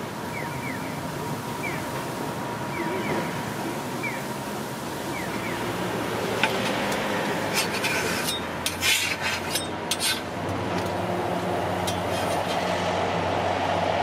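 Clicks and scrapes of a metal spatula worked under a crepe on the crepe griddle, from about six to ten seconds in, over steady street noise; a passing vehicle's low rumble builds near the end.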